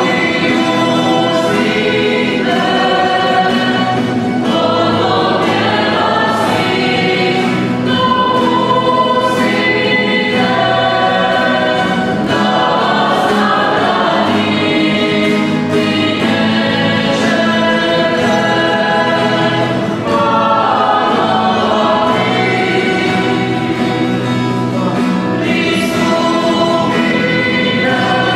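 A choir singing a hymn: several voices in harmony, holding long notes.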